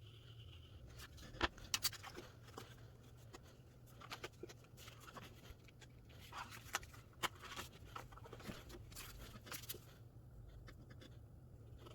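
Scattered light clicks, taps and rustles of something being handled, over a low steady hum.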